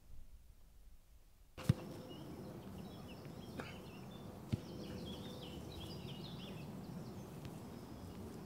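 A football kicked on grass: a sharp thud near the start and another about halfway through, over outdoor ambience with birds chirping.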